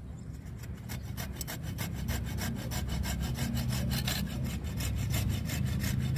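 Hand pruning saw cutting through a live branch of a Wrightia religiosa (mai chiếu thủy) tree in quick, even strokes, about six a second, getting louder as the cut goes on over a steady low hum.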